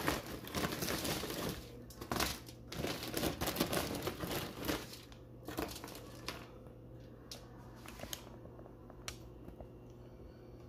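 Crinkling and rustling of food packaging and heavy-duty aluminium foil being handled, dense for about the first five seconds, then quieter with scattered light clicks and taps over a low steady hum.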